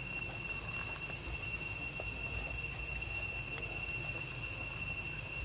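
A steady high-pitched insect drone, one even whine with overtones, over a low rumble, with a few faint clicks.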